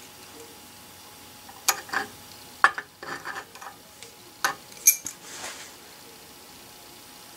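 A scattering of light, sharp clicks and ticks, about half a dozen in the middle of the stretch, with a brief soft hiss after them, over a faint steady background.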